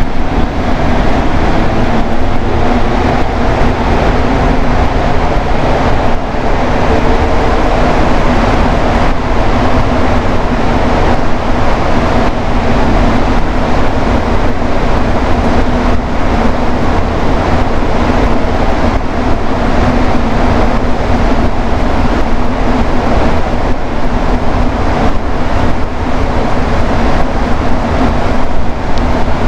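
Montreal metro rubber-tyred train running steadily between stations, a loud continuous rumble with a steady hum.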